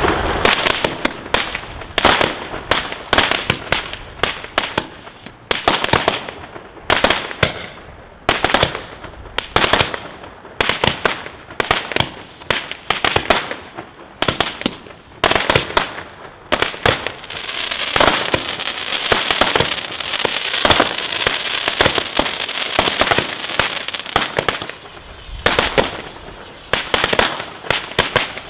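A 25-shot consumer firework cake firing shot after shot, each a sharp report at uneven intervals. About two-thirds through, the shots give way for several seconds to a dense, continuous run of pops and crackle, and single sharp reports return near the end.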